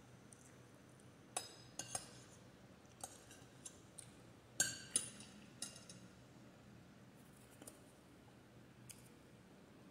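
Metal spoon clinking against a glass bowl while eating: a handful of sharp clinks in the first six seconds, then a couple of faint taps.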